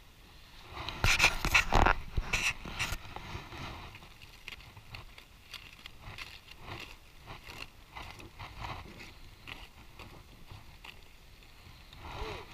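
Aluminium foil over a cooking fire being handled and scraped with a knife: a burst of crinkling and scraping about a second in, then scattered small clicks and crackles.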